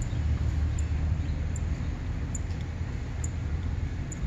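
Wind buffeting the microphone in a steady low rumble, with a man chewing a soft bread-bun egg sandwich close to the mic.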